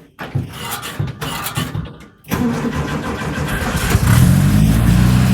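1965 Volkswagen Beetle's air-cooled flat-four engine cold-started after sitting for months: it cranks from about two seconds in, fires about a second later and keeps running steadily. The owner thinks the choke is no longer set up correctly.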